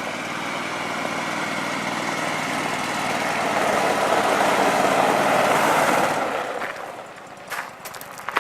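A motor vehicle's engine running, growing louder and then dying away about six seconds in.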